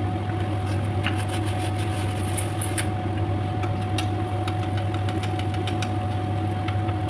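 Chapati dough deep-frying in hot oil in a wok, sizzling and crackling from about a second in while it is basted with a slotted spoon, over a steady low hum.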